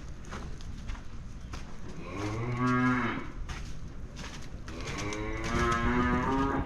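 Dairy cow mooing twice: two long, low calls a couple of seconds apart, the second one longer.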